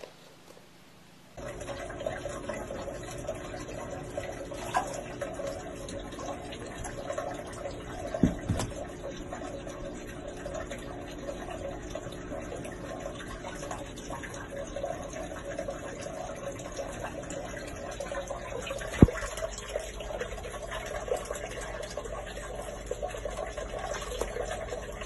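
Steady rushing, water-like noise, with a sharp click about a third of the way in and another about three quarters of the way through.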